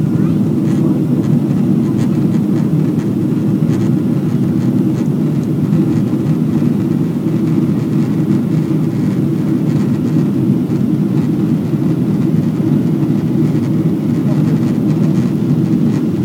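Steady low cabin roar of a Boeing 777-300ER in its climb, heard inside the cabin by the wing: the GE90 engines and rushing airflow. It holds even, with no change in pitch or level.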